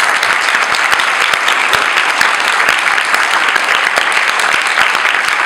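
A seated audience applauding: many people clapping their hands in dense, steady applause.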